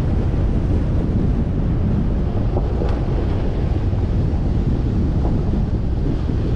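Steady low rumble of wind buffeting the microphone of a camera on the moving vehicle, with a few faint knocks near the middle.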